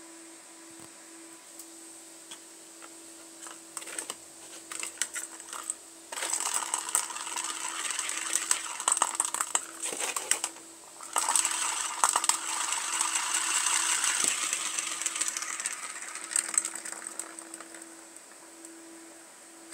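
Plastic ball rolling fast around the enclosed circular track of a plastic cat toy as the toy is swirled by hand: scattered clicks of the ball knocking, then a continuous rattling whirr in two spells, a short break between them, the second fading out.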